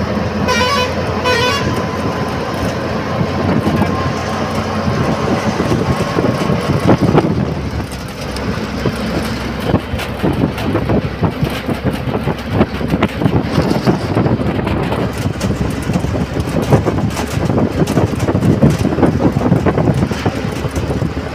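Bus's diesel engine running under way, with road and wind noise and the body rattling, rougher and more uneven from about eight seconds in. A horn sounds in rapid pulses near the start.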